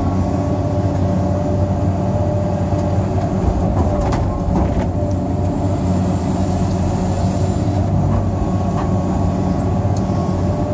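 Cat 385C L excavator's diesel engine running under load, heard from inside the cab, with a steady high whine over a deep rumble as the bucket is worked. There is a click about four seconds in.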